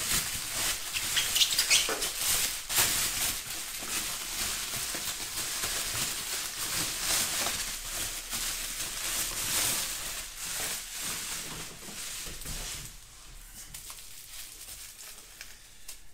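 Plastic bubble wrap crinkling and rustling in the hands as it is pulled off a shock absorber, quieter for the last few seconds.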